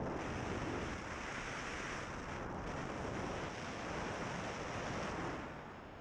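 Wind rushing over a helmet-mounted camera's microphone as a bicycle is ridden along a road: a steady, even rushing noise, easing slightly near the end.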